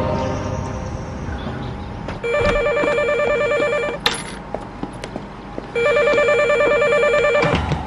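Telephone ringing twice, an electronic warbling ring with each ring lasting just under two seconds.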